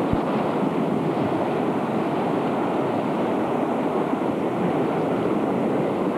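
Steady rushing roar of the Malom stream in flash flood, a fast torrent of muddy brown water. A brief low thump right at the start.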